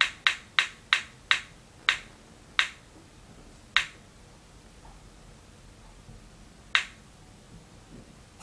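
Spinning-prize-wheel app's ticking sound effect through a tablet speaker as the on-screen wheel spins down to a stop. The ticks slow from about three a second to one every second or so, and one last tick comes about three seconds later.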